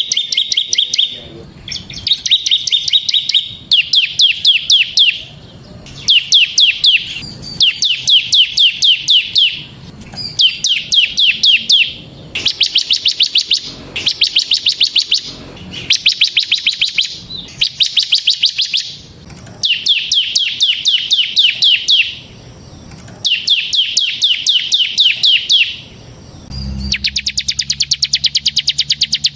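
Bar-winged prinia (ciblek) singing in full voice: repeated bursts of rapid, high, evenly spaced notes, each burst a second or two long with short pauses between. Near the end a faster, unbroken run of notes starts, with a low hum under it.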